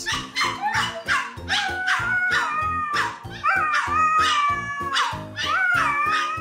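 A Chihuahua yapping in quick short barks while a Siberian husky answers with long, drawn-out howling calls that waver in pitch, starting about two seconds in. The Chihuahua is scolding the husky for taking her bone.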